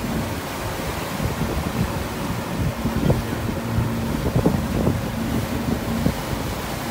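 Wind buffeting the microphone and water rushing and slapping against the hull of a Yamaha 252SE jet boat under way, with a faint low steady hum underneath and a few short knocks from the water in the middle.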